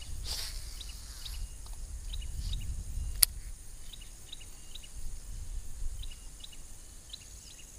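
Outdoor rural ambience: a bird repeating short high chirps about twice a second over a steady high insect hum and a low rumble, with one sharp click about three seconds in.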